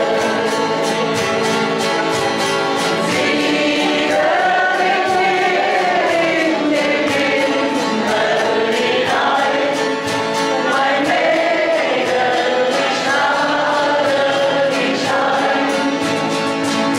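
A mixed group of older amateur singers singing a German folk song (Heimatlied) together, accompanied by strummed acoustic guitars.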